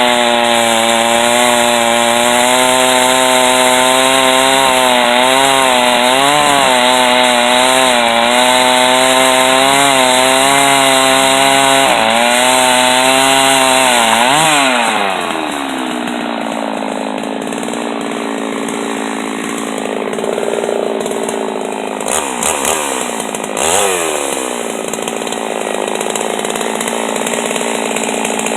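Two-stroke chainsaw in a chainsaw mill cutting through white oak under heavy load, its pitch wavering as the chain works through the log. About halfway through, the engine note swings up and then falls away to a quieter, steadier running, with two short revs near the end.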